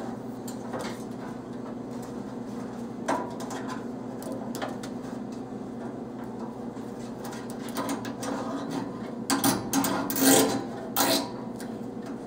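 An LED light strip and its wire being handled and fitted against a vending machine's metal door: light rubbing and a few clicks, then a louder run of rustling and clicks about nine seconds in. A steady low hum lies under it all.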